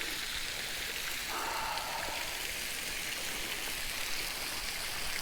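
Waterfall spilling from a high ledge and splashing onto rock: a steady hiss of falling water.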